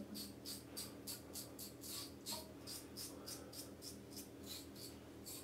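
Merkur Progress safety razor with a Feather double-edge blade scraping through a couple of days' stubble under the nose in short, quick strokes, about four a second, each a crisp scratch.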